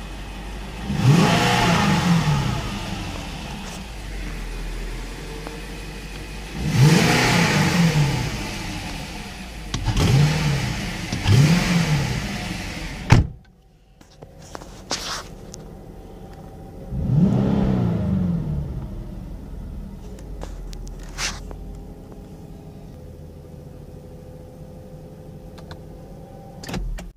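Infiniti M V8 idling in Park and revved in short blips, heard from inside the cabin: the pitch rises and falls back to idle four times, then after a break once more, with a single sharp click near the end.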